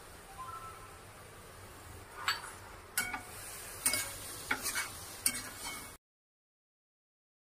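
Spatula stirring grated coconut and sugar in a stainless-steel kadhai, scraping and clinking against the pan: a faint hiss at first, then five or six sharp clinks. The sound cuts off to dead silence near the end.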